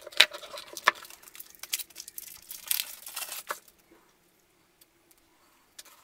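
Plastic wrap crinkling and tearing as a coiled extension cord is unwrapped by hand, with scattered sharp clicks; it falls quiet a little over halfway through.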